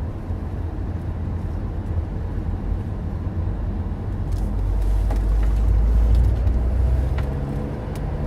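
A road vehicle driving: steady low engine and road rumble, growing louder about halfway through and easing slightly near the end.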